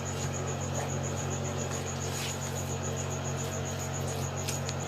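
A cricket chirping in a steady, fast high-pitched pulse, several chirps a second, over a steady low hum, with a few faint scrapes.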